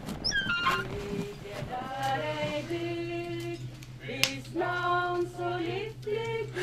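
A voice singing long held notes that step from pitch to pitch, over a steady low hum, with a sharp click a little after four seconds in.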